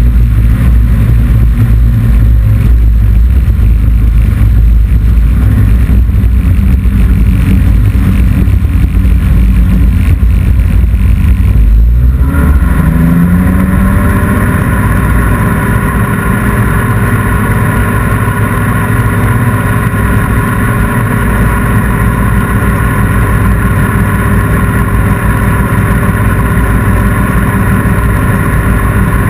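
Ultralight aircraft engine running, with wind rushing over a strut-mounted camera: a deep, heavy rumble for the first twelve seconds or so, then the engine note rises and settles into a steady, higher drone as power is added to climb away from the grass strip.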